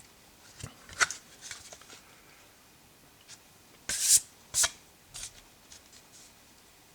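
A Blu-ray steelbook case being handled: a sharp click about a second in, then two short scraping rubs near the middle, followed by a few light taps.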